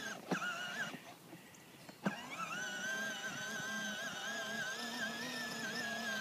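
Electric motor and gearbox of a toy battery ride-on quad whining as it drives over grass, its pitch wavering slightly. The whine stops briefly just before one second in and starts again with a click about two seconds in.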